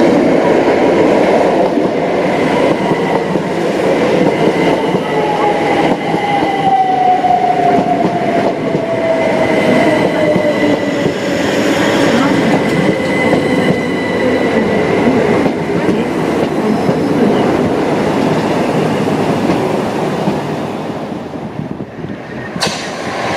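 c2c Class 357 Electrostar electric multiple unit passing close at speed: the wheels rumble on the rails, and a whine falls steadily in pitch as the train goes by. The sound cuts off abruptly near the end.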